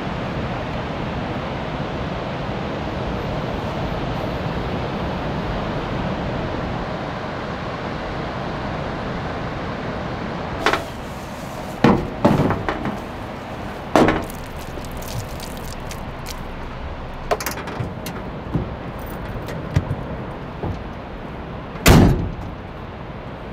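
Steady rush of ocean surf for the first ten seconds or so. Then, against a quieter background, a string of knocks and clicks from gear being handled in a pickup's camper-shell bed, with one loudest knock near the end.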